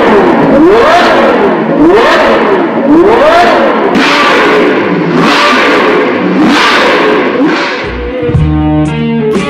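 Ferrari GTC4 Lusso's V12 blipped repeatedly in park through a Kline Inconel valvetronic race exhaust, each rev rising and falling in pitch about once a second or so. Music with a heavy bass comes in near the end.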